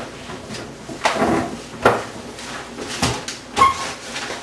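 A few separate knocks and bumps, about four spread over a few seconds.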